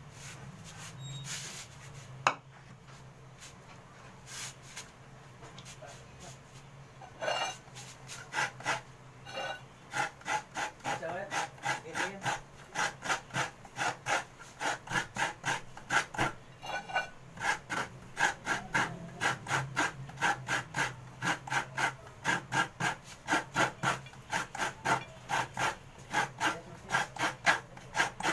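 Coconut half scraped against the metal blade of a wooden coconut-grater bench (kudkuran), grating out the meat in regular strokes about two to three a second. The strokes start about seven seconds in and grow steadier and louder from about ten seconds.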